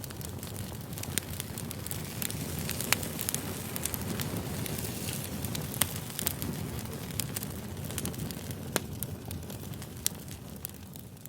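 Campfire burning, with a steady low rush and frequent sharp crackles and pops from the burning wood. It fades down near the end.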